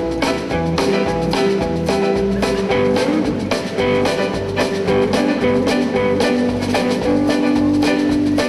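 Background music: a band track with guitar and a steady drum beat.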